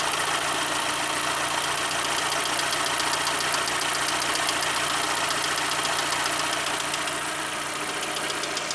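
Lada Kalina 16-valve engine idling steadily at working temperature, with a fast, even ticking from the valve train. A rare light tap from a hydraulic lifter on the fourth cylinder is still present.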